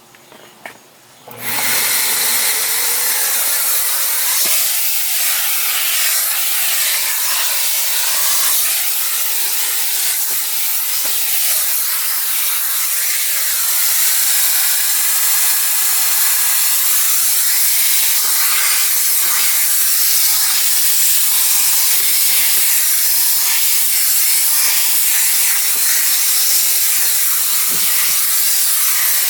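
Electrolux Ergospace canister vacuum cleaner switched on about a second and a half in, its motor rising in pitch as it spins up, then running steadily with a loud, even rush of air.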